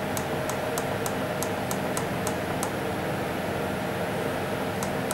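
Cold room refrigeration unit running with a steady hum. Over it come light ticks about four a second, pausing about halfway, as the up button on the Danfoss controller steps the setpoint up.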